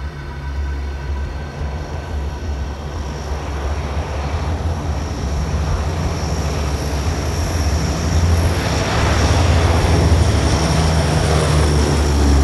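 Lockheed P-3 Orion's four Allison T56 turboprops at takeoff power as it climbs past: a steady low propeller drone with a high turbine whine, growing louder toward the end.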